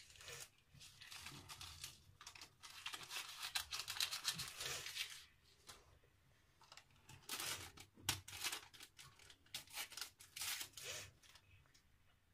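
Paper sachets of baking powder torn open and emptied, with crinkling paper. The tearing and crinkling come in two bouts, about two seconds in and again about seven seconds in.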